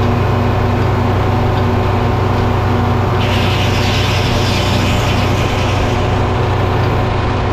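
Engine powering a Frick sawmill running steadily, with a hissing noise joining about three seconds in.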